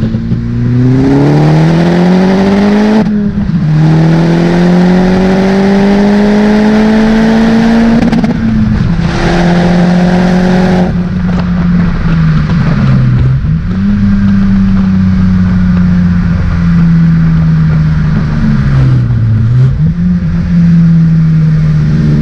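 Opel Corsa OPC's turbocharged 1.6-litre four-cylinder, with an aftermarket downpipe on an otherwise stock exhaust, heard from inside the cabin while driving. The revs climb in two pulls with upshifts about three and eight seconds in. The engine then settles into a steady cruise with two brief dips in revs.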